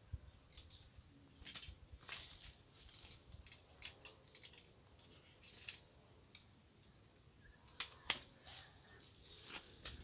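Irregular rustling and crackling of leaves and twigs, as a person pushes through dense brush, with a few louder snaps about two seconds in and again near the end.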